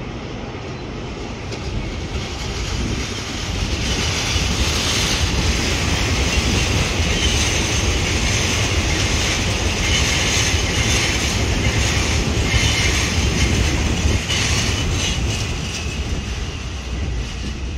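Taiwan Railway electric passenger train running past on a concrete viaduct: a rumble with rail and wheel noise that builds over the first few seconds, stays loud through the middle as the cars go by, and fades near the end.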